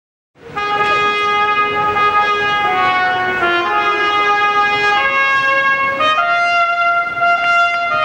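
Solo trumpet playing a slow melody of long held notes, starting about half a second in.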